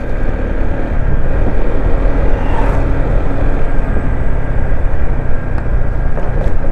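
Motorcycle on the move: engine running under loud, steady wind rush on the microphone.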